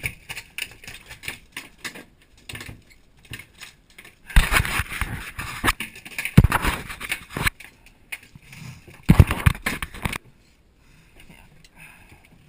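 A freshly landed fish thrashing on a boat deck: irregular rapid thumping and slapping, with two loud spells, one about four seconds in lasting some three seconds and a shorter one near the tenth second.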